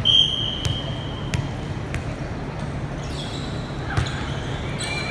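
Volleyballs being hit during warm-up in a gym: several sharp slaps of hand on ball and ball on floor, the loudest a spike about four seconds in, with short sneaker squeaks. A short whistle blast sounds at the very start.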